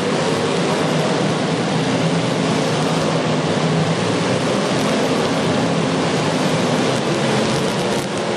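Demolition derby cars' engines running hard together, a loud, steady wash of engine noise.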